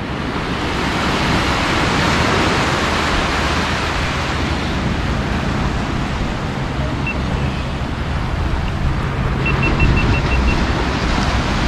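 Small surf washing onto a shallow sandy beach, a steady rush with wind noise underneath. Near the end comes a brief run of about six faint high ticks.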